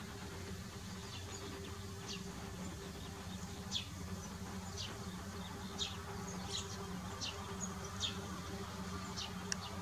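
Short, high bird chirps, roughly one a second, over a steady low buzzing hum.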